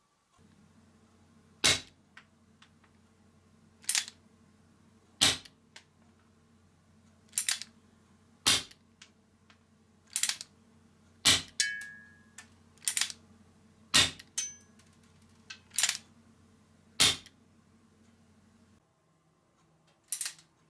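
Marushin Super Blackhawk gas airsoft revolver firing about a dozen single shots, one every one to two seconds, each a sharp pop, with fainter clicks between some of them.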